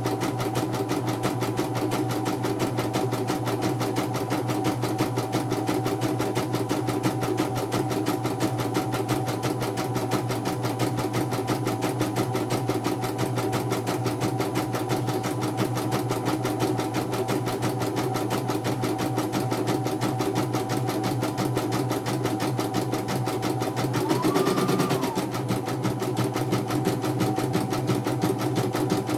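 CNY portable computerized embroidery machine stitching a design, the needle mechanism running with a fast, even rhythm as the embroidery unit moves the hoop. About 24 seconds in, a short whine rises, holds briefly and falls away.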